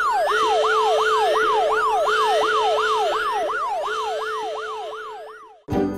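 A siren in fast yelp mode, used as an alarm effect, its pitch sweeping up and down about four times a second over a steady lower tone. It fades a little and cuts off just before the end, where music starts.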